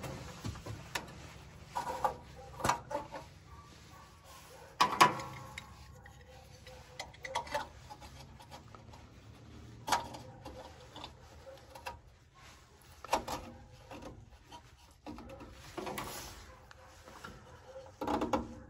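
Scattered, irregular light clicks and knocks of a metal radiator cap being handled at the radiator filler neck of a Volvo 122.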